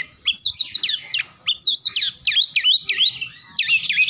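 Oriental magpie-robin singing: quick runs of loud, harsh notes that each drop sharply in pitch, delivered in several phrases with brief pauses between them.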